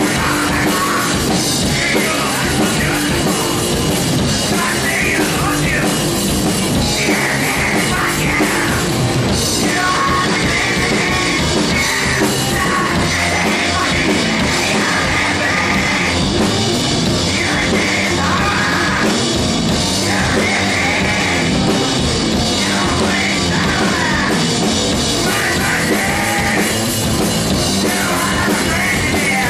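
A rock band playing live: vocals in phrases over electric bass, electric guitar and a drum kit, loud and unbroken throughout.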